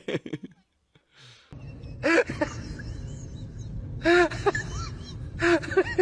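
Short vocal cries that rise and fall in pitch, in three bursts about two, four and five and a half seconds in, over steady background noise.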